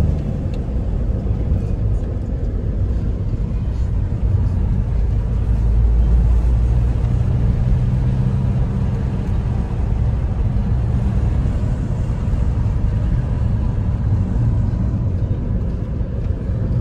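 A car driving along a road, heard from inside the cabin: a steady low rumble of engine and tyres.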